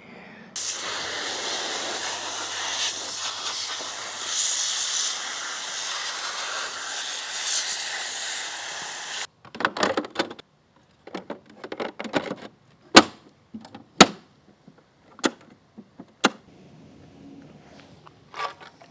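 A steady hiss of spraying water, most likely a hose rinsing debris out of a robotic pool cleaner's filter baskets, starting abruptly and cutting off suddenly about nine seconds in. A series of sharp clicks and knocks follows, like plastic parts being handled and snapped together.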